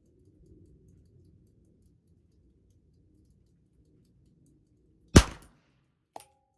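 A single shot from a Ruger Super Wrangler .22 single-action revolver firing a .22 Short round: one sharp crack with a short tail about five seconds in. About a second later comes a brief metallic click with a short ring.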